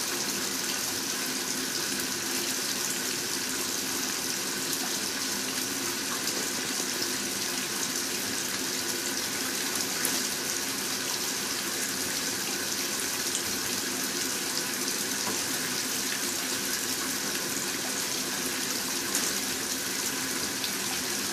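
Steady hiss of running water, unchanging, with a faint low hum beneath it.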